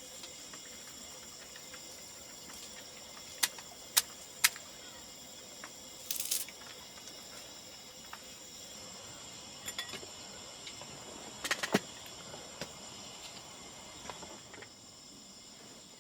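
Scattered sharp clicks and light knocks, three spaced about half a second apart and a short rustling burst, over a faint steady hiss with a thin high whine.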